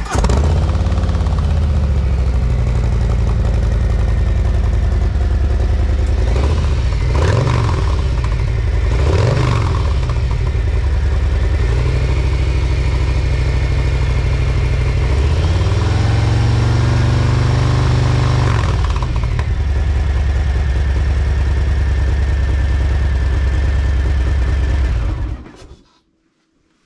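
Harley-Davidson Low Rider ST's Milwaukee-Eight 117 V-twin idling just after start-up, blipped twice quickly, then revved and held higher for a few seconds before settling back to idle and being switched off near the end. It is run briefly after an oil change to push the fresh oil into the filter before the level is checked.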